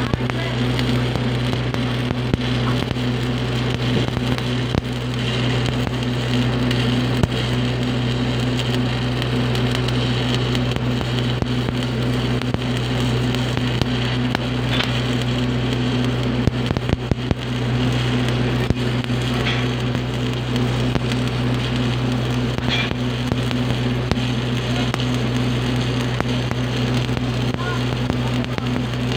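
Stick (SMAW) welding arc crackling and sizzling steadily as the electrode burns, with a steady low hum underneath.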